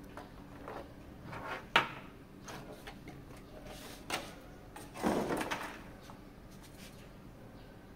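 Handling sounds from unboxing an action figure: light rustling, a sharp click a little under two seconds in, a knock around the middle, then about half a second of sliding and rubbing.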